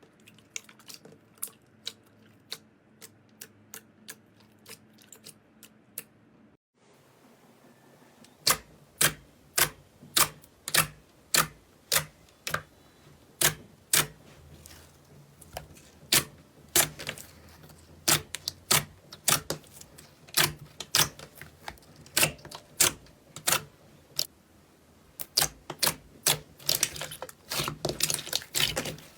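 Slime being pressed and worked, giving sharp clicking pops about twice a second. The clicks are faint at first and much louder from about eight seconds in.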